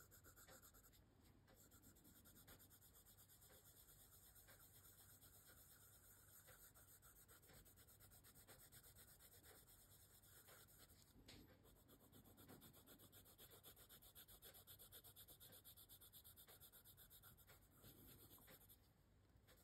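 Faint scratching of a coloured pencil on paper: many quick, short shading strokes as the lightest pink is layered over a flower petal.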